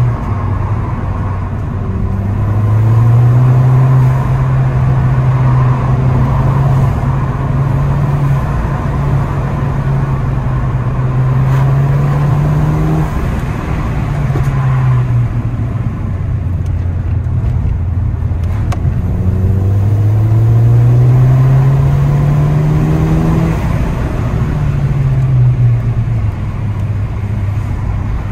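Ford Fiesta ST180's turbocharged 1.6-litre EcoBoost four-cylinder, remapped to Stage 2 with the central silencer deleted, heard from inside the cabin under hard driving. The engine note climbs in pitch as the car accelerates, then drops back at gear changes or lift-off, several times, over steady road and tyre noise.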